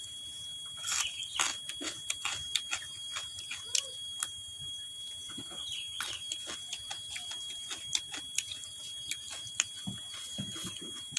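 Close-miked eating sounds: chewing raw greens and vegetables with rice, with many short crisp crunches and wet mouth clicks. A faint steady high whine runs underneath.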